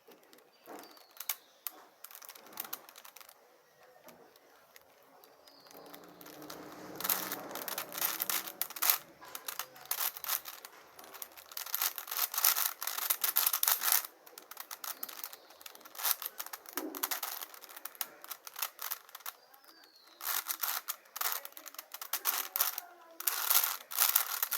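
Plastic clicking and clacking of a 5×5 Rubik's cube's layers being turned by hand, sparse at first, then rapid runs of clicks from about six seconds in, with short pauses between runs.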